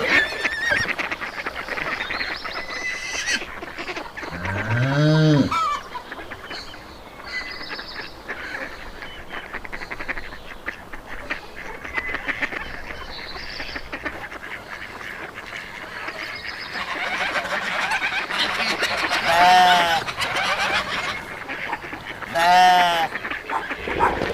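Farm animal calls with goose-like honking over a busy background. Three louder drawn-out calls rise and fall in pitch: a low one about five seconds in and two higher ones near the end.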